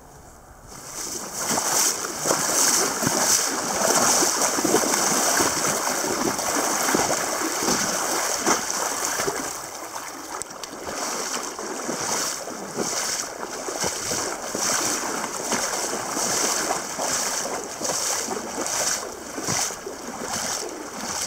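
River water rushing and splashing around a kayak in the shallows, starting suddenly about a second in, with many irregular small splashes and knocks.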